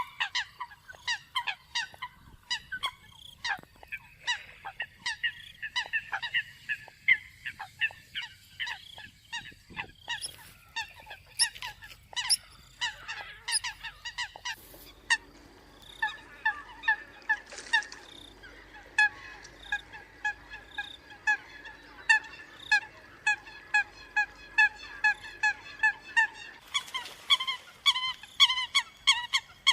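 Eurasian coots calling: short, honking, nasal notes repeated in a steady run of about two or three a second, from a recorded lure call. The background noise behind the calls changes abruptly twice, where recordings are joined.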